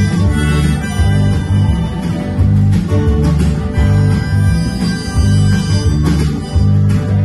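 Live band playing an instrumental passage: strummed acoustic guitar, electric guitar and a drum kit, with a strong low beat about twice a second.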